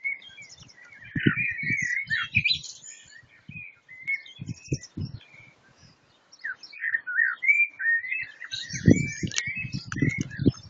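Songbirds singing: warbling, gliding phrases with higher chirps mixed in, thinning out in the middle and rising again in the second half. Low thuds come and go underneath, heaviest about nine seconds in.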